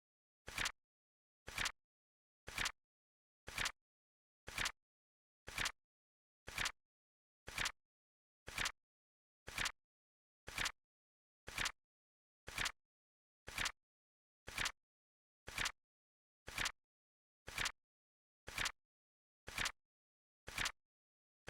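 Flip clock sound effect: a short flap click once a second, evenly spaced, as the seconds card flips over.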